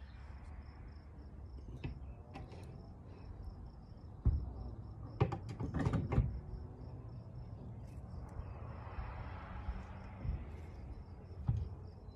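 An elk skull mount being handled and hung on a metal wall hanger: a few knocks and clunks, about four, five to six and eleven seconds in. A faint, steady, high pulsing chirp runs underneath.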